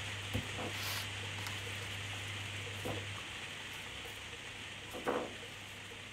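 Strawberries handled in a plastic punnet and dropped into a ceramic bowl: a few soft knocks and light plastic rustles, the loudest about five seconds in, over a steady hiss and a low hum that stops about three seconds in.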